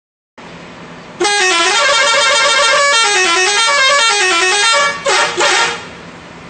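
Scorpion Holidays coach's multi-tone telolet horn playing a stepped melody for about three and a half seconds, then two short blasts, over a steady low hum.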